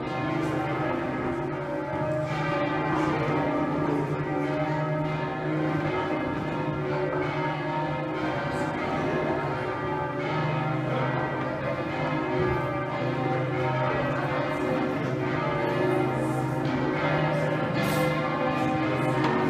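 Change ringing on Exeter Cathedral's ring of twelve bells, tenor about 72 cwt: a steady stream of overlapping bell strikes, each ringing on under the next, over a deep hum.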